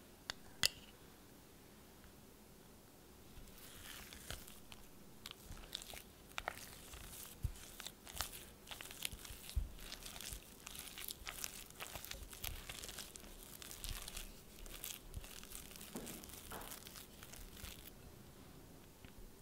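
A spatula mixing fresh cream into mashed steamed sweet potato in a glass bowl: dense crackly squishing and scraping that starts a few seconds in and runs until near the end. Two sharp clicks come about half a second in.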